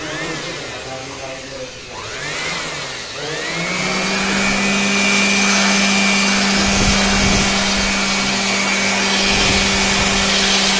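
A motor-driven machine running: its pitch sweeps up and down over the first three seconds, then settles into a steady hum with a high whine over a noisy rush.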